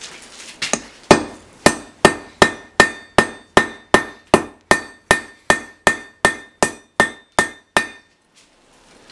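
A hand hammer forges a red-hot piece of steel held in tongs on an anvil: about twenty steady blows, roughly two and a half a second, each with a short metallic ring from the anvil. The blows stop shortly before the end.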